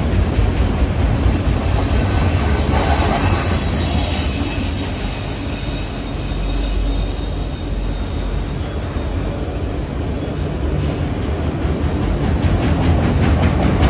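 Freight train of enclosed autorack cars rolling past: a steady, loud rumble of steel wheels on rail, with a faint high wheel squeal over the first few seconds and a fine rapid clatter picking up near the end.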